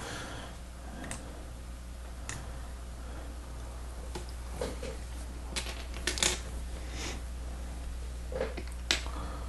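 Small plastic Lego Technic parts clicking and rattling as they are handled and pushed onto an axle: a few scattered sharp clicks over a steady low hum.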